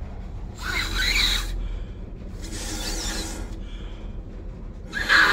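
Puffs of breath blown through the water flow sensor of a fibre laser source: three noisy blasts about two seconds apart, the last the loudest. The blowing stands in for cooling water, to see whether the sensor sends its flow signal.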